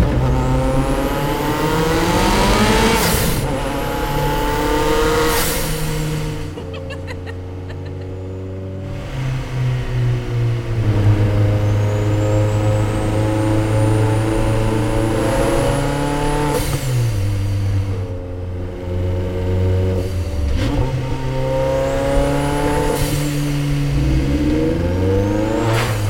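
Pogea Racing ARES002, a tuned Abarth 500 with a 1.4-litre turbocharged four-cylinder, accelerating hard. It climbs in pitch through the gears several times, each run cut off by a gear change, with a quieter, steadier stretch about a third of the way in. A thin high whistle rises in the middle.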